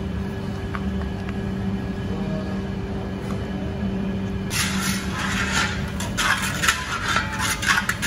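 Steady low kitchen hum, then from about halfway through, ground spices sizzling and crackling in hot oil as they are stirred with a spatula into frying onions in a traditional chatti: the masala base for a mutton curry being fried.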